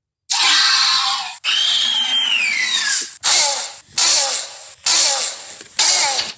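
Velociraptor sound effect calls: a run of six shrill, screeching shrieks. The first two are long, and the second carries a high note that slides downward. Four shorter screeches follow at about one a second.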